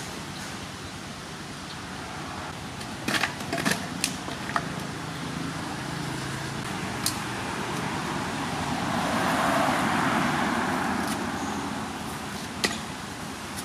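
A few sharp clicks and taps of a kitchen knife against watermelon rind and a metal bowl as the flesh is cut into cubes and tipped out. Underneath is a steady background rush that swells for a few seconds past the middle.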